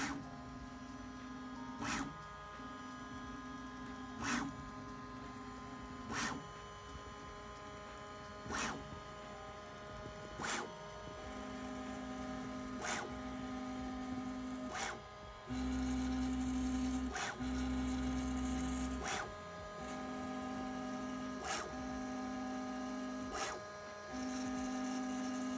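Bambu Lab A1 Mini 3D printer's stepper motors running the motor noise cancellation calibration, driving the toolhead and bed at set test speeds. A steady humming tone that stops and restarts in stretches, broken by a short knock about every two seconds; the hum grows louder past the middle.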